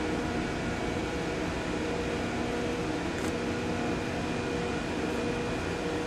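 Steady mechanical drone of running machinery, an even noise with several steady humming tones held throughout.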